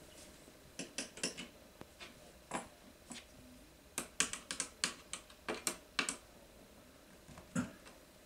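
Irregular sharp clicks and taps of a hand screwdriver against metal curtain-bracket hardware at a window frame, bunched quickly together a little past the middle, with one last tap near the end.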